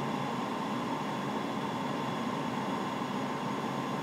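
Steady cockpit background noise: an even rush of air and equipment hum with a thin, steady high whine.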